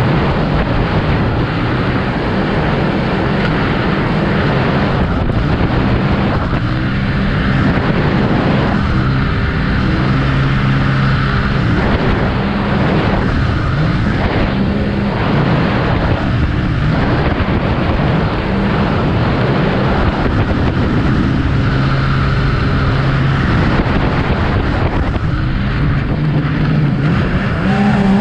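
Jet boat's engine running hard at speed, its pitch rising and falling as the throttle changes, under a steady rush of water spray and wind.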